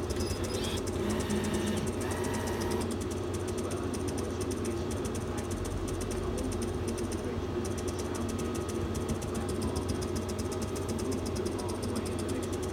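Steady electrical hum and machine noise from a fixed-odds roulette terminal. In the first couple of seconds there are short electronic tones as chips are placed on the touchscreen, and a fast run of faint clicks continues over the hum.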